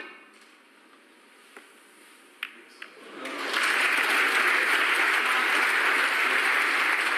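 A snooker cue strikes the cue ball with a sharp click, and a few lighter clicks of balls knocking together follow between about one and a half and three seconds in. Then audience applause swells up about three seconds in and carries on loudly.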